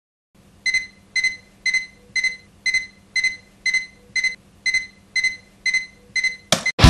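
Digital alarm clock beeping: short single electronic beeps, about two a second, the wake-up alarm going off. Near the end a brief, louder noisy burst cuts in, and loud rock music starts.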